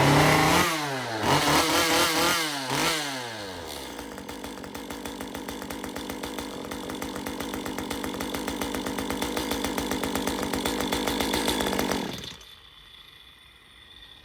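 Stihl MS 194 T top-handle two-stroke chainsaw starting and being revved up and down a few times. It then idles steadily and is shut off about twelve seconds in. It runs without its former squeal, the crankshaft having been filed down to cure it.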